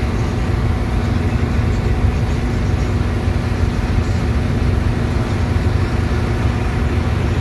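Ferry's engine running steadily underway: a constant low rumble with a steady hum, over the rushing wash of water along the hull.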